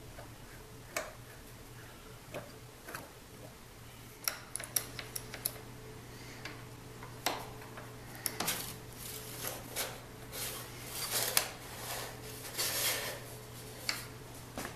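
Hand-work on a wooden hand-crank rewind mechanism: scattered small clicks and knocks as a hex key works a screw, then denser rubbing and clattering as a rubber O-ring drive belt is stretched over the oak pulleys and the crank is turned. A faint steady low hum runs underneath.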